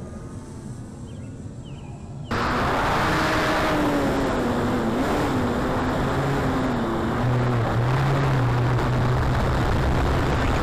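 Electric RC biplane's Scorpion brushless motor and 15x8 propeller whining in flight, heard on board the plane with heavy wind rush. It starts faint, jumps suddenly loud about two seconds in, and the whine wavers and slides lower before settling into a steady lower tone.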